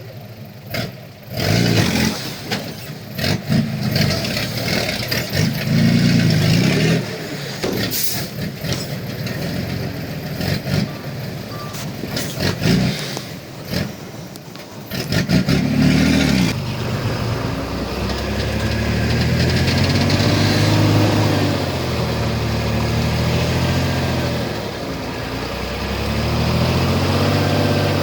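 Heavy diesel engine of an earthmoving machine at work, with irregular knocks and clatter in the first half. From a little past halfway it settles into a steady run, its pitch rising and falling in long swells as it is worked under load.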